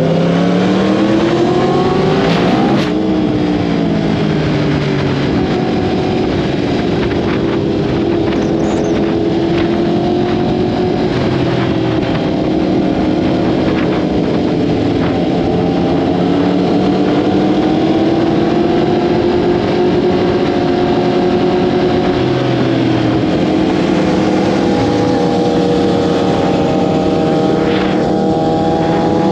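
Sport bike engine under way: it revs up for about two and a half seconds, drops sharply at a gear change, then runs at a steady cruising pitch that rises and falls slowly.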